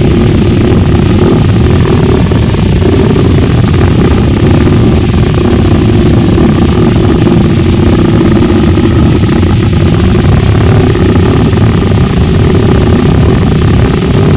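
Gorenoise music: a loud, unbroken wall of heavily distorted noise, with a low rumble under a steady drone that wavers slightly in pitch.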